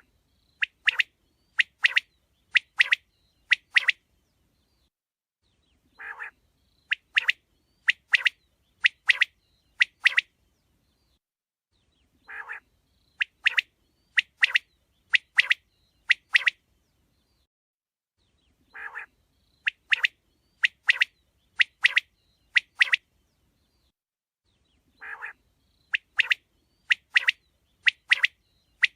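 Quail calling: a phrase of one lower note followed by five sharp, high notes about a second apart, repeated about every six seconds.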